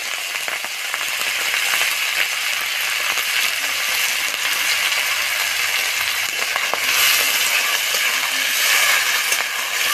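Raw shrimp sizzling steadily in hot mustard oil in a kadai, a loud even hiss flecked with small crackles. A spatula stirs them toward the end.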